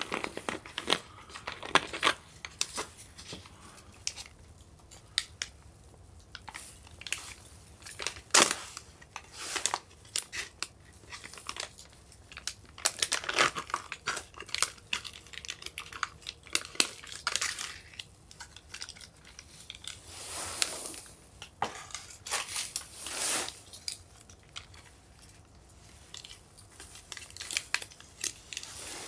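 Plastic food packets crinkling and being torn open by hand, in a run of irregular rustles and crackles.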